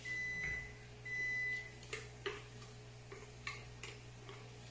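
Two steady, high electronic beeps in the first second and a half, then a handful of sharp taps as chopsticks knock against a blender jar while thick blended paste is scooped out, over a low steady hum.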